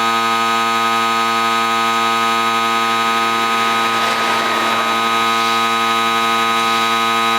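Loud, steady electronic buzzing tone with a low hum and many overtones, holding one unchanging pitch.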